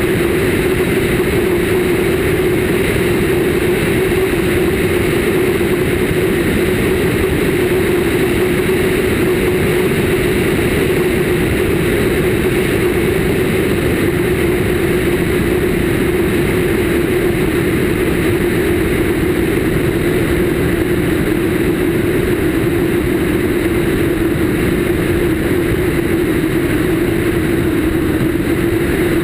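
Cessna 152's four-cylinder engine and two-blade propeller running steadily in flight, heard from a camera mounted outside on the wing, so that loud rushing wind mixes with the engine drone. The sound stays unchanged throughout, with no change in power.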